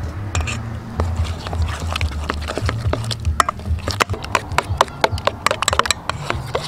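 Metal spoon stirring and scraping a thick flour-and-egg batter in a stainless steel bowl, with quick clinks of the spoon against the bowl that come faster in the second half. A low rumble sits underneath.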